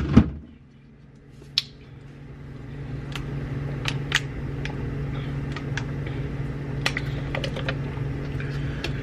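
Scattered sharp clicks and crackles of a thin plastic water bottle being handled and drunk from, the loudest early on, over a steady low hum.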